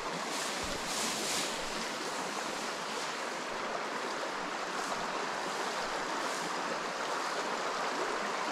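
Steady rushing of a shallow stream running over stones, with a few brief swishes of tussock grass brushing past.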